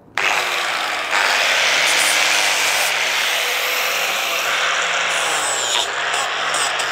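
Electric angle grinder with a waxed flap disc switching on and running; the sound gets louder and harsher about a second in and then stays steady.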